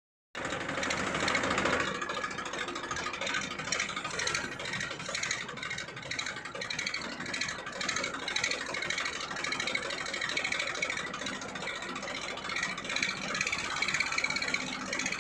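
Steady vehicle engine-like running noise that wavers slightly in level, with most of its sound in the upper middle range and little low rumble.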